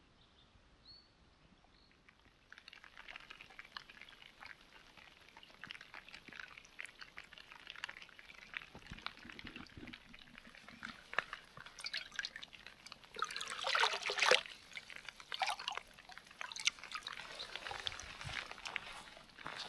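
Water splashing and trickling, starting about two seconds in, with a louder gush for about a second and a half past the middle.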